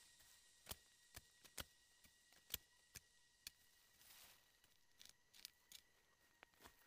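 Machete blade scraping and chopping into loose soil and leaf litter to clear a patch of ground: a string of short, sharp scrapes and knocks, with a brief rush of flung soil about four seconds in.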